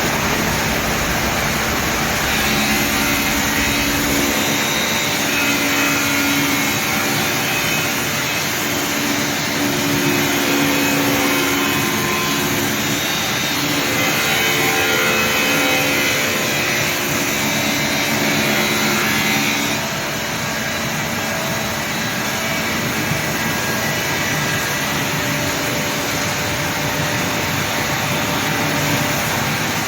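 Glass CNC machining center grinding the rounded edge of a glass panel: a steady whirring hiss of the spindle and grinding wheel, changing tone and dropping slightly about twenty seconds in.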